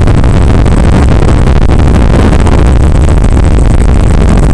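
Loud, steady, distorted rushing noise on the onboard audio of a Skywalker 1900 FPV plane in flight, with no clear motor note standing out.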